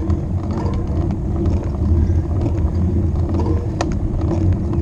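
Wind rushing over the microphone of a camera on a road bike riding at speed, a steady low rumble. A single sharp click comes about four seconds in.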